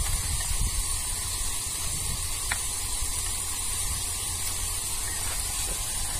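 Wind rumbling on the microphone over a steady hiss, with one faint click about two and a half seconds in.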